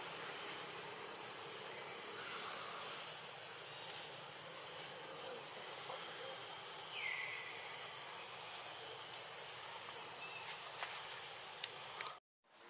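Steady, high-pitched insect chorus of tropical forest ambience. One short falling chirp comes about seven seconds in. The sound cuts out briefly near the end.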